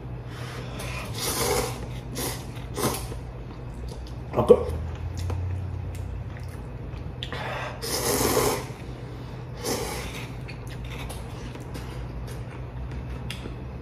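Instant cup ramen noodles being slurped: a few short slurps in the first three seconds and a longer one about eight seconds in, with a brief sharp sound about four and a half seconds in, over a low steady hum.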